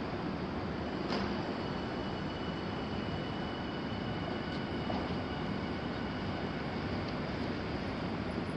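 Tokyu 5050-series electric commuter train pulling out of a station, a steady rumble of motors and wheels on the rails. There is a sharp click about a second in and a faint high tone for a few seconds.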